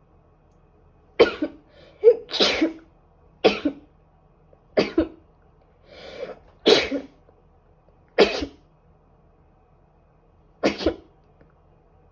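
A woman sneezing repeatedly, about seven sharp sneezes in a row, one every second or so.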